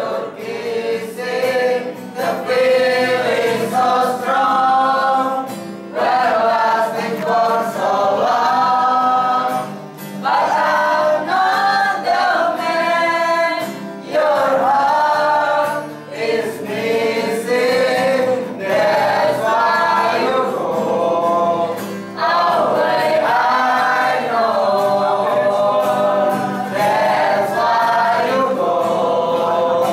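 A small mixed choir of young men and women singing together in harmony, in sung phrases with brief breaths between them.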